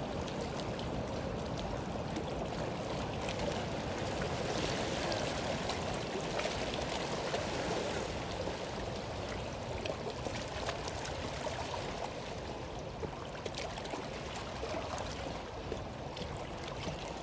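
Fast river water rushing steadily past the rocky bank, with a few short clicks in the second half.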